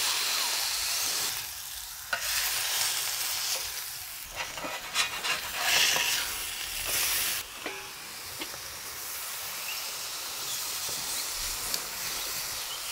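Ground-beef patty sizzling loudly on a hot plancha, coming in surges over the first seven seconds or so with a few sharp metal clicks, then settling into a steadier, quieter frying sizzle.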